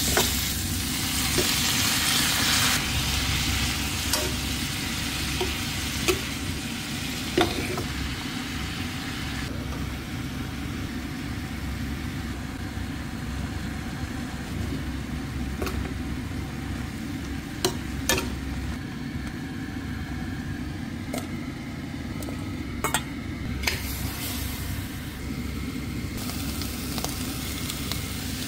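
Food sizzling in a hot wok as it is stir-fried, loudest in the first few seconds, with the metal spatula clinking against the pan now and then. A steady low hum runs underneath.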